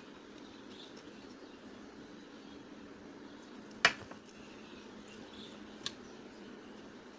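A hand squeezing and mixing soaked rice in water in a steel bowl makes soft wet squishing and squeaking sounds. A sharp click comes a little before four seconds in and a fainter one near six seconds, over a steady low hum.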